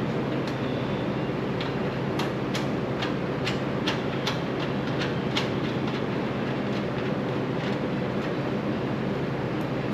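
Handheld laser cutter cutting through sheet-steel body panel: a steady machine hum with irregular sharp crackles and snaps from the cut.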